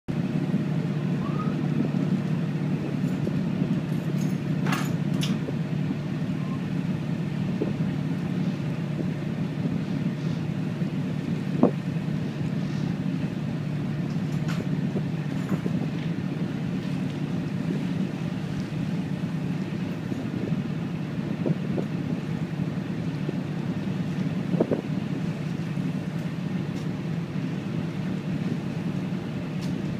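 Small passenger ferry's engine running at a steady low drone while under way, with water and wind hiss over it. Two brief sharp knocks stand out, one a little before halfway and one near the end.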